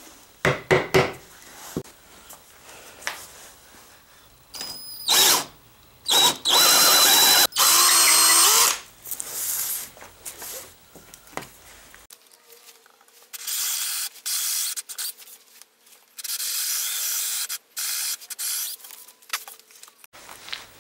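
Power drill boring dowel holes into a thick hardwood board, running in several bursts of a second or two each, with a few sharp knocks near the start.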